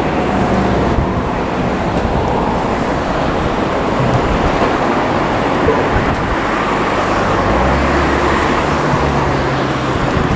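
Steady rumble of passing traffic, with a low engine hum that grows stronger about three quarters of the way through.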